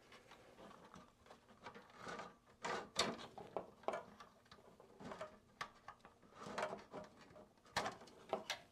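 Irregular small clicks and knocks of the fan power-cable plug connectors being pulled loose by hand inside a Synology DS920+ NAS chassis, the sharpest about three seconds in and near the end.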